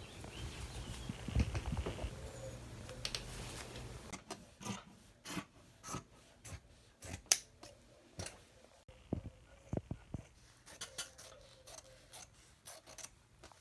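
Scissors cutting cloth: a long run of sharp snips, irregularly spaced, starting about four seconds in after some quieter handling noise.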